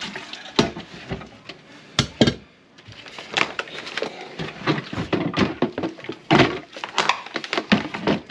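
Irregular knocking and clattering of hard objects, many sharp strikes close together with a short pause a little after two seconds in.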